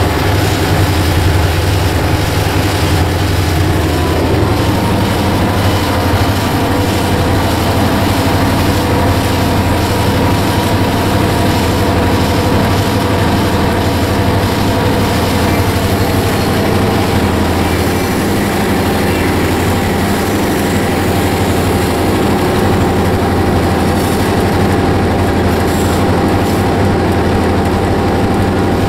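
Diesel locomotive engine running as the locomotive moves slowly, heard from the cab and side walkway: a loud, steady drone with a deep hum and several held tones that shift slightly about four seconds in.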